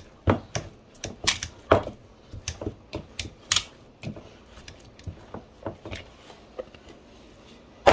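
Irregular light clicks and knocks of things being handled in a kitchen. They come thickly for the first few seconds, then more sparsely, with one sharper knock at the very end.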